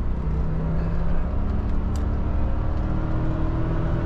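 1984 Mercedes-Benz sedan engine pulling hard at full throttle through its automatic, held in one gear, its pitch rising steadily as the revs climb, heard from inside the cabin over road rumble.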